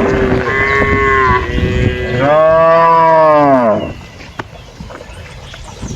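Cattle mooing: a moo trailing off at the start, a second moo about half a second in, then a long moo that rises and falls in pitch and ends nearly four seconds in.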